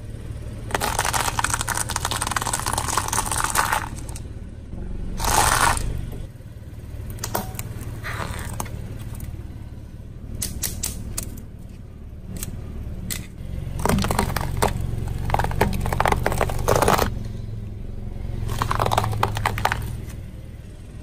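A car tyre slowly rolling over things on concrete and crushing them, with the car's engine humming low underneath. Sunflower seed shells give a long crackle as they split, and a wire-mesh kitchen strainer being flattened gives sharp clicks and crunches.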